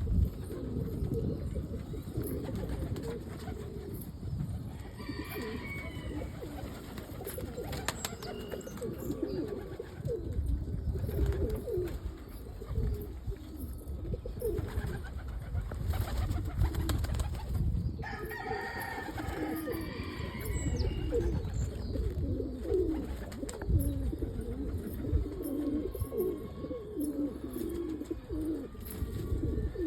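Domestic pigeons cooing: many low, overlapping warbling coos that run on continuously.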